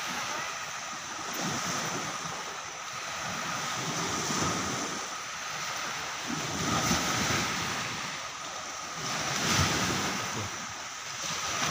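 Sea surf washing in the shallows, rising and falling in slow surges every two to three seconds.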